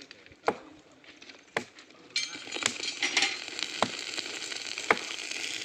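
Sharp ticks about once a second, then, about two seconds in, a steady hissing crackle from the rail weld starts suddenly and carries on.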